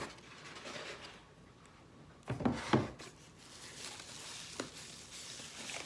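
Handling of an unboxed coffee grinder and its packaging: soft rustling, two knocks about two and a half seconds in, and a small click near the end.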